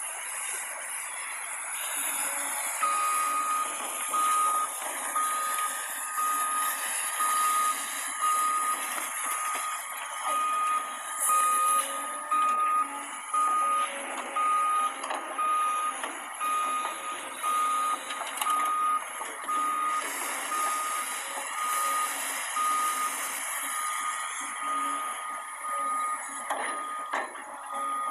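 Reversing alarm on a Cat construction machine sounding a single-pitched beep, evenly repeated, over the steady noise of machinery at work; it starts about three seconds in and stops near the end, a sign the machine is backing up.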